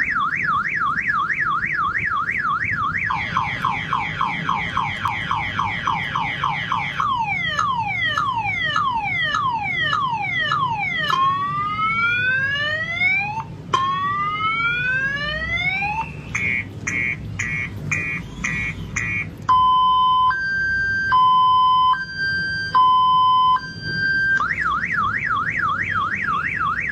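A man vocally imitating a multi-tone car alarm, running through its siren patterns in turn. First a fast up-and-down warble, then quick falling chirps, slower falling and then rising whoops, rapid repeated beeps, and a slow two-tone high-low alternation. The fast warble returns near the end.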